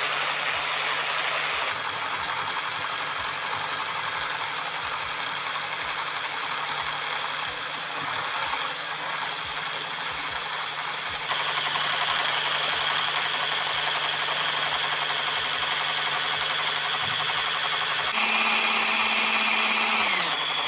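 Electric hand blender with a whisk attachment running steadily, whipping coffee, sugar and hot water into a froth in a glass jug. Its pitch shifts a few times, and right at the end the motor is switched off and winds down with a falling whine.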